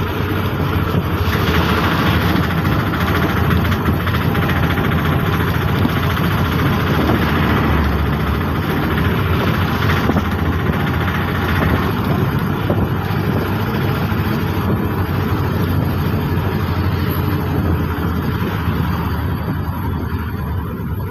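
Auto-rickshaw's small engine running steadily while driving, heard from inside the open cabin along with road noise. It eases off a little near the end.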